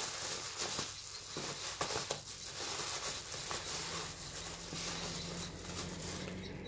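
Rustling and light clicking of hands rummaging through a box of CDs, with packaging crinkling.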